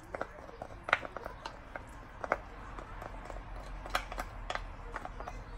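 Light clicks and taps of a spoon against a small glass dish as chopped garlic is scraped out into a bowl, with a few sharper clinks among them.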